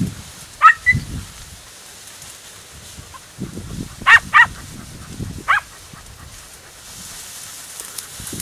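Podenco Andaluz hounds giving short, high yelping barks while hunting rabbits: one about a second in, two in quick succession about four seconds in, and one more a second later. Low knocks and rustling run underneath.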